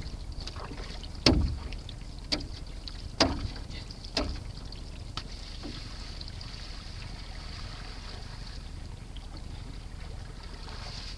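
Canoe paddle strokes splashing in the water, about once a second and growing fainter, then stopping after about six seconds. Steady wind noise underneath.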